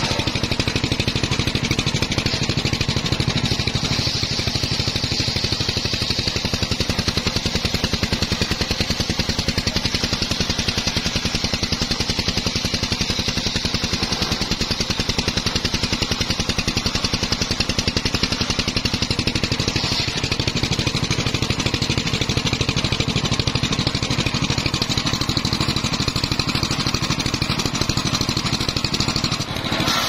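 Engine-driven circular sawmill running steadily, its motor chugging in fast, even pulses while the large blade saws through a mahogany log with a high, continuous hiss.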